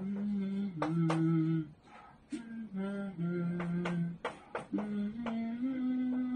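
A man singing slowly in long held notes, the pitch stepping from note to note, in three short phrases with brief pauses between them.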